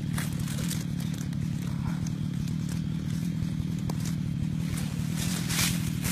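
Two-stroke chainsaw running at a steady pitch, with scattered crackles and clicks over it.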